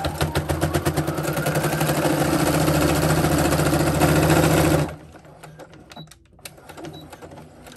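Electric sewing machine running a straight stitch through many layers of fabric, a fast even chatter that picks up speed over the first two seconds and stops abruptly about five seconds in. A few light clicks follow.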